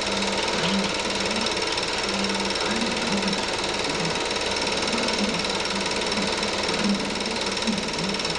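Home-movie film projector running: a steady mechanical whirr and clatter with a low hum.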